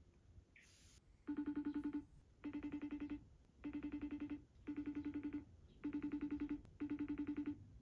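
iPhone FaceTime call ringing while waiting to be answered: six buzzy, fast-trilling rings about a second apart, starting a little over a second in.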